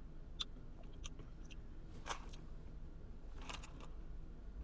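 Faint sipping of an iced drink through a straw, with a few short mouth clicks as it is tasted, over a low steady hum.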